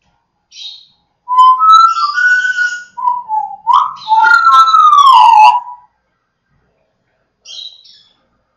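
Congo African grey parrot whistling a string of loud gliding notes for about four seconds, ending in a long downward-sliding whistle. A short, faint scratchy call comes before it and another near the end.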